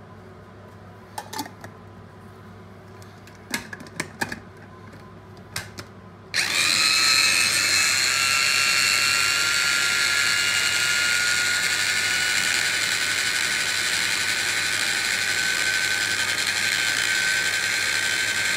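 A few clicks and knocks, then about six seconds in a small electric mini chopper (blender) starts and runs loud and steady with a high, annoying whine that creeps slightly up in pitch as it purees cooked celeriac.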